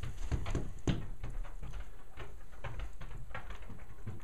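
Footsteps crunching in fresh deep snow, a few steps a second and strongest in the first second, over a low rumble.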